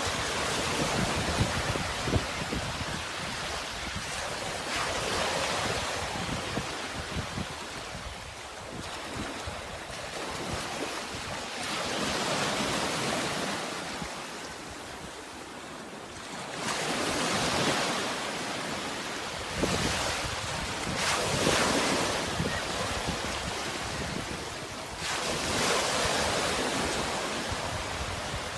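Sea waves washing in and breaking, in repeated surges of surf that swell up and fade back every few seconds.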